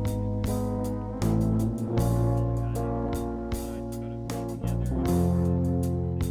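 Background music: guitar-led instrumental with bass guitar and a steady beat.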